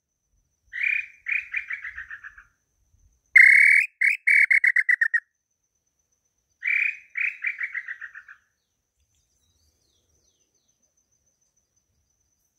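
Wooden tinamou call (pio garganta) imitating the Tataupa tinamou's song: three phrases, each a run of short whistled notes that fall in pitch and fade away. The middle phrase is the loudest.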